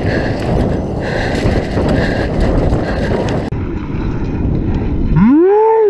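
Wind rushing over a helmet camera's microphone, with the tyres of a mountain bike rolling fast over a dirt downhill trail. Near the end a rider lets out a short whoop that rises and then falls in pitch.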